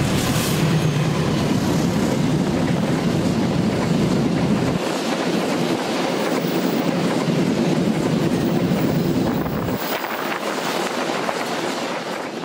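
A GE CM20EMP (KAI CC206) diesel-electric locomotive passes close at speed, then a long string of flat wagons runs by with steady wheel and rail clatter. The deep engine rumble drops away about five seconds in, leaving the rattling of the wagons.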